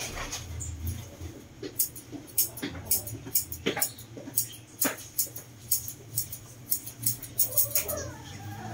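Grooming scissors snipping quickly and irregularly, many short sharp snips, as they trim a dog's head fur.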